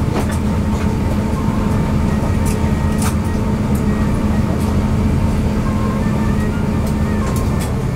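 Steady low hum inside an Airbus A350-900's cabin as the airliner stands still after landing, with a few faint clicks.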